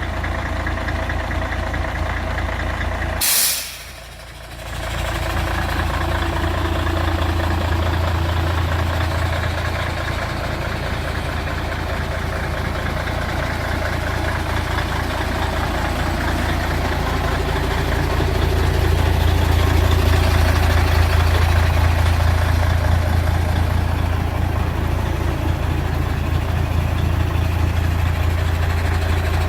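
Mercedes-Benz Actros 1840 tractor unit's diesel engine idling steadily. About three seconds in comes a short sharp hiss of air, like an air-brake or air-dryer release, after which the engine sound briefly drops away and then returns.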